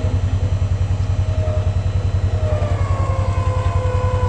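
An engine idling with a steady low throb, about ten beats a second; a faint higher whine comes in about three seconds in.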